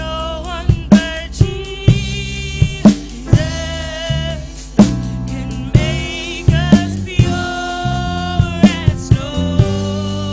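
Praise and worship music: a drum kit keeps a steady beat under bass notes and a singing voice with vibrato.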